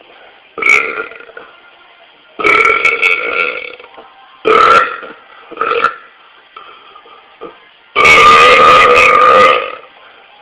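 A man burping repeatedly: five voiced belches with quiet gaps between them, the last, near the end, the longest and loudest at about a second and a half.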